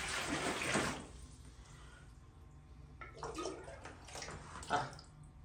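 Clear limewater poured from a metal pot into a plastic basin of cut pumpkin pieces, a splashing pour for about the first second, followed by a few fainter short splashes and knocks.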